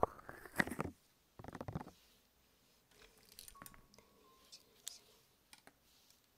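Quiet, scattered light clicks, with a short burst of scratching in the first two seconds and then only a few faint ticks.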